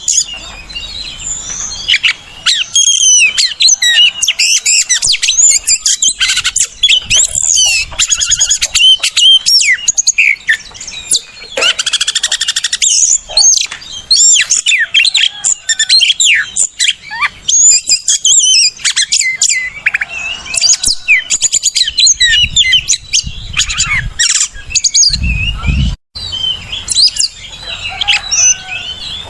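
Oriental magpie-robin (kacer) singing loudly: a continuous, varied stream of whistles, quick trills and chirps. The song cuts out for an instant near the end.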